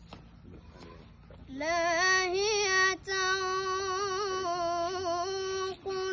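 A boy's voice chanting Quran recitation (qirat) in melodic tajweed style. After a short pause for breath, he draws out the word 'lahiyatan' on a long, high, ornamented note with wavering turns.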